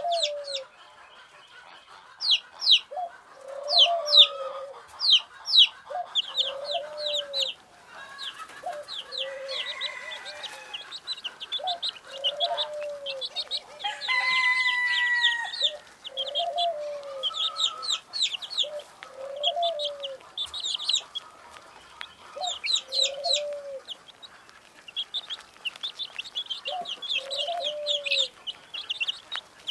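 Chicks peeping in fast, high-pitched trains throughout, over a hen's low clucks repeating every second or two. One longer, louder call comes about halfway through.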